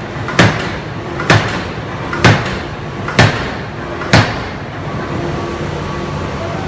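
Hydraulic open-die forging hammer striking a workpiece on its anvil: five heavy blows a little under a second apart, stopping about four seconds in, over a steady machinery background.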